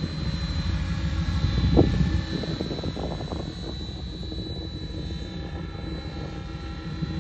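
Synergy E5 electric RC helicopter in flight while manoeuvring, with a steady high whine from its electric motor drive over the low rush of the rotor blades. The rotor noise swells about two seconds in and again around three seconds.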